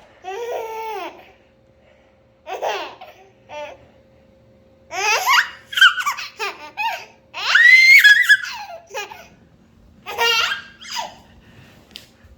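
Baby laughing in about six bursts of giggles and belly laughs with short pauses between, the loudest and highest-pitched burst about eight seconds in.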